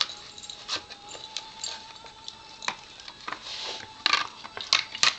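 Siberian husky gnawing a bone: irregular crunches and clicks of teeth on bone, with a few louder ones near the end.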